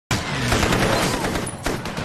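Rapid machine-gun fire, a dense stream of shots that dips briefly about one and a half seconds in before going on.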